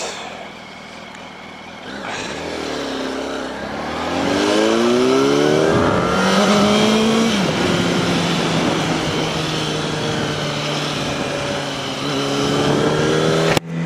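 Yamaha R1 inline-four motorcycle engine accelerating, its revs rising twice through the gears about two to six seconds in, then holding steady at cruising speed.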